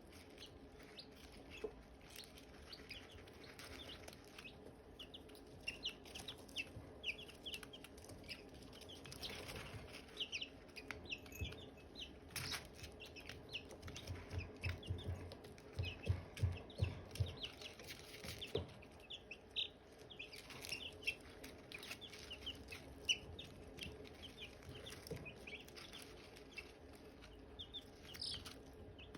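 Silkie chicks peeping: a steady run of many short, high chirps that fall in pitch, overlapping one another. About halfway through, a brief series of soft low thumps is heard.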